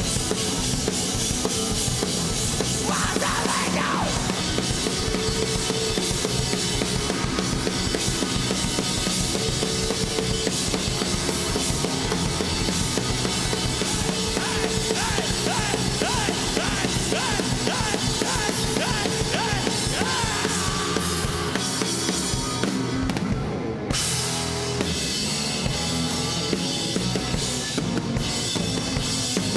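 Rock band playing live: drum kit, distorted electric guitars and bass guitar in a driving instrumental passage.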